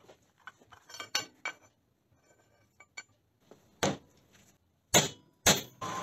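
Steel parts being handled on a cast-iron drill press table: scattered light clinks and taps, then three louder sharp knocks near the end, about four, five and five and a half seconds in.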